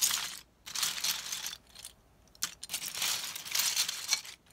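Loose plastic LEGO bricks clattering and rattling as a hand rummages through a large pile of them, in bursts with a short lull about two seconds in.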